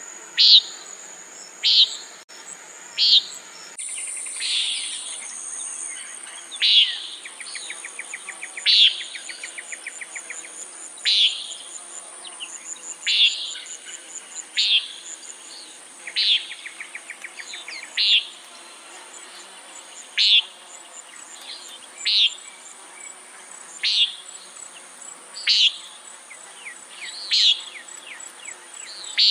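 Common nighthawk giving its short nasal "peent" call over and over, about once every two seconds. A steady high insect trill runs underneath.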